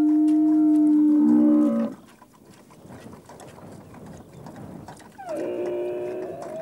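Bactrian camels calling. A long steady call drops lower and cuts off about two seconds in, and after a quieter stretch a second call starts about five seconds in.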